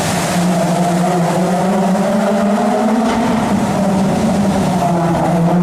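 Rally car engine at high revs as it approaches, a steady, loud note whose pitch rises and dips slightly as the driver accelerates and eases off.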